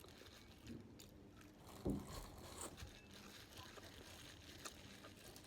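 Faint chewing and biting of a person eating, with small crunches and clicks, and one low thump about two seconds in.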